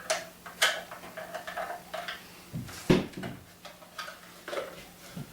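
Plastic parts of a paintball hopper being handled and fitted together: a series of small clicks and knocks, the sharpest about three seconds in.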